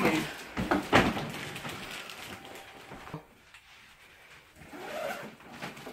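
Handling noise from a phone camera rubbing and knocking against clothing and a bag, with a loud thump about a second in.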